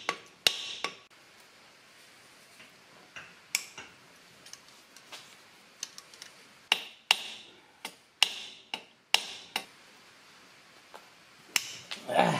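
Scattered sharp metallic clicks and taps from hand tools working the screws out of a Honda MR50 engine's stator plate: a screwdriver turning and knocking against the screws and case, with uneven gaps between the strokes.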